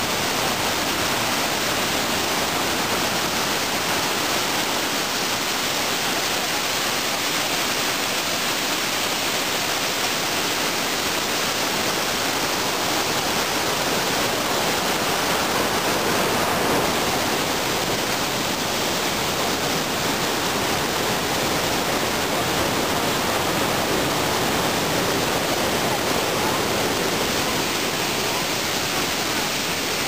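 Probiy waterfall on the Prut River: whitewater rushing steadily over rock ledges in an even, unbroken rush of noise.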